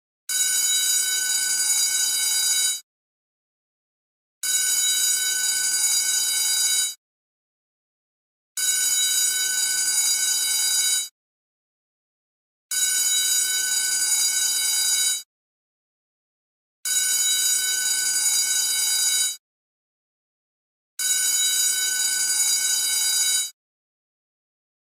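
School bell ringing in six identical bursts of about two and a half seconds each, repeating roughly every four seconds, with dead silence between: a looped sound effect.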